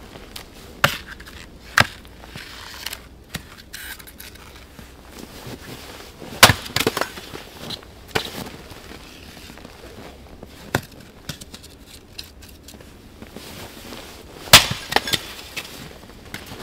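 Axe splitting firewood on a stump chopping block: a series of sharp chops a few seconds apart, the loudest about six seconds in and again near the end.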